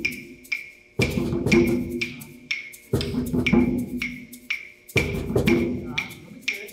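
Hand drums and small hand percussion playing a simple four-count rhythm together. A deep djembe or cajon stroke rings about every two seconds, and sharp, high, wood-block-like clicks fall about twice a second in between.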